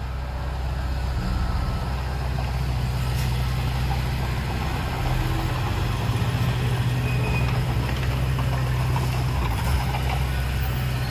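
Heavy diesel engine of earthmoving machinery running steadily with a low drone, picking up slightly about five seconds in.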